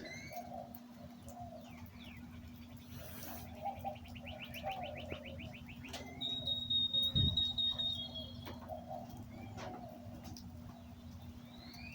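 Birds chirping, with a rapid trill about three seconds in and a held whistle about six seconds in, over a steady low hum.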